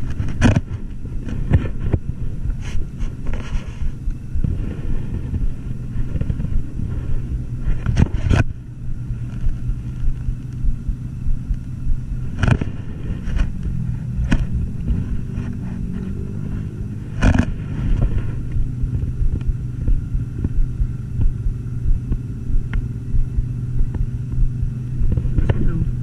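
An engine hums steadily at a low pitch, with several sharp knocks over it.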